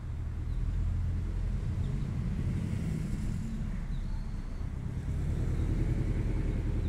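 Low, steady engine rumble, growing louder about a second in and again about five seconds in.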